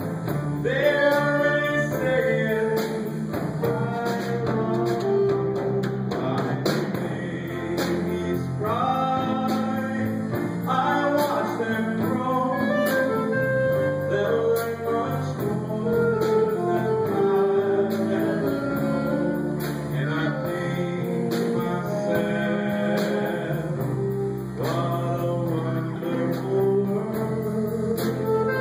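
Small jazz band playing a jazz standard live, with a vocalist singing over guitar and bass.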